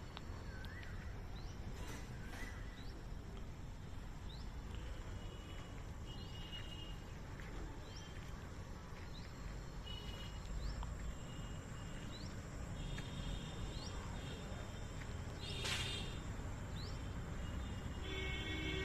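Outdoor ambience: small birds chirping, with short rising calls repeating every second or so, and one louder call about three quarters of the way through, over a low steady rumble.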